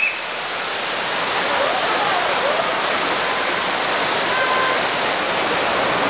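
Steady rushing of a waterfall and the shallow stream below it pouring over rocks, with faint voices from a crowd now and then.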